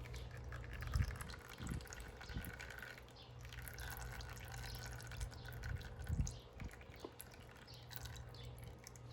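Old engine oil dripping from a small motorcycle engine into a drain pan, with a few soft thumps. Faint birdsong in the background.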